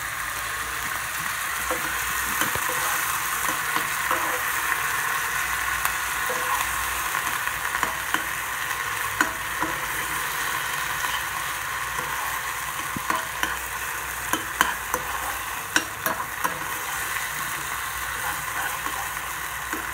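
Minced pork sizzling steadily in a non-stick frying pan while being stirred with a metal tablespoon, the spoon scraping and clicking against the pan now and then.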